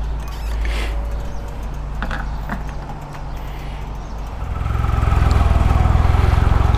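Petrol filling a motorcycle's tank from a pump nozzle, with a few sharp clicks from the nozzle over a steady low hum. A little over four seconds in, the Triumph motorcycle's engine comes in much louder and runs steadily.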